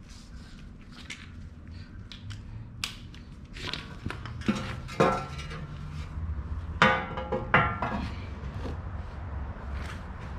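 Metal tools and car parts clinking and clanking as they are handled, with a few sharp metallic clanks that ring briefly; the loudest come about five seconds in and twice around seven to eight seconds in.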